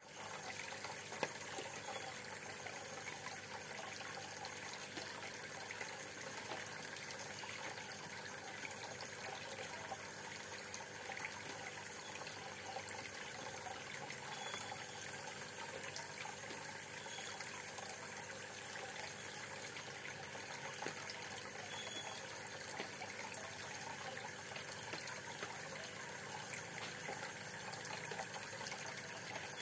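Steady bubbling and trickling of aquarium water, from rising air bubbles and circulating water, with a single sharp tap about a second in.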